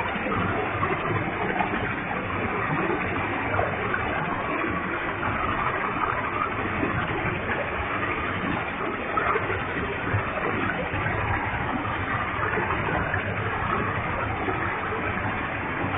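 Waterfall with a heavy flow of water, a steady, even rush of falling water and spray.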